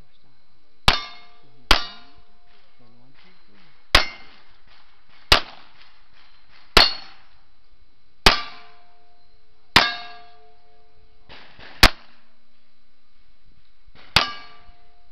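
Revolver shots, nine in all, spaced about one to two seconds apart. Most are followed by the short ring of a steel plate target being hit.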